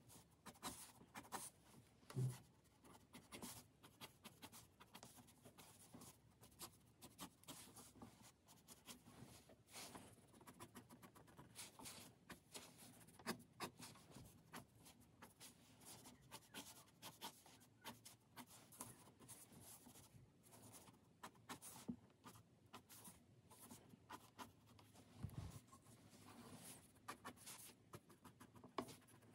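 Micron 01 fineliner pen scratching on paper in many short, quick strokes while hatching lines, with a soft low thump about two seconds in.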